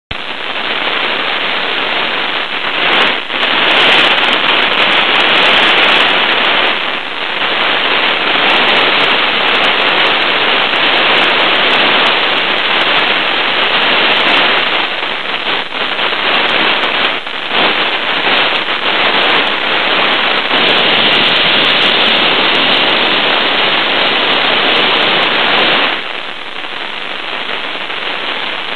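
Merlin model gas-turbine jet engine running on a test stand: a loud, steady rush of jet noise. It grows louder a few seconds in and drops back near the end.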